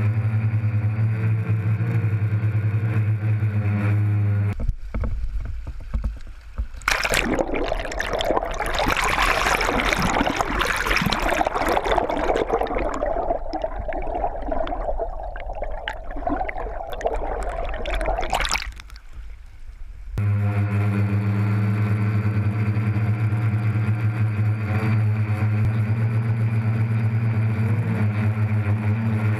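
DJI Phantom quadcopter's motors giving a steady multi-toned hum. About five seconds in the hum drops out to a low rumble, then gives way to a dense, muffled rushing and bubbling of creek water with the camera under the surface. The steady motor hum returns about twenty seconds in.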